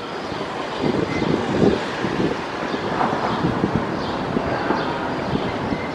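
Airbus A320's CFM56 turbofan engines running at taxi power as the airliner rolls along the taxiway, a steady jet noise mixed with gusts of wind buffeting the microphone.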